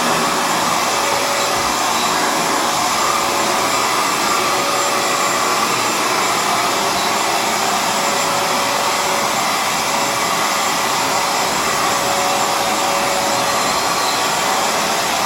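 Hoover FloorMate Edge hard floor cleaner running steadily in dry mode, its suction motor making a constant rushing whine as it sucks the wash water back up off the floor.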